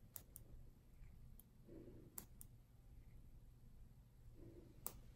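Near silence broken by a few faint, sharp clicks of surgical scissors snipping keloid tissue from an earlobe: two near the start, two more about two seconds in, and one near the end.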